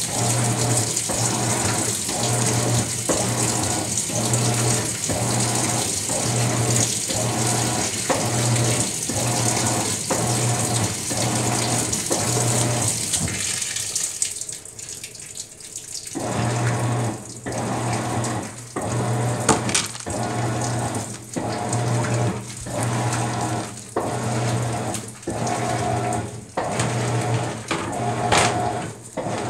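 Maytag MVWX655DW top-load washer agitating in its deep water wash cycle: the drive motor hums in a regular back-and-forth rhythm, a little over one stroke a second, over churning, sloshing water. The strokes stop for about two seconds around the middle, then start again.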